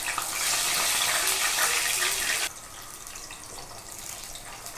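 Raw banana slices sizzling in very hot oil on a full flame. The hiss is loud for about two and a half seconds, then drops abruptly to a quieter sizzle.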